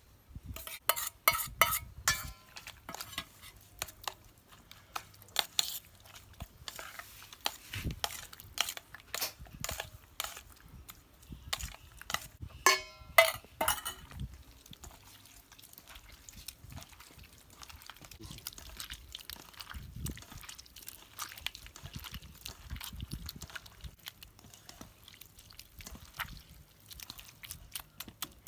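Steel bowls knocking and ringing against each other, loudest in the first couple of seconds and again about halfway through, then softer squelching and clicking as a hand mixes yogurt in a steel basin.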